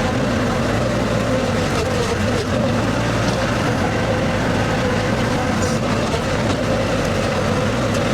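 Skid steer engine running steadily at working revs with a constant drone.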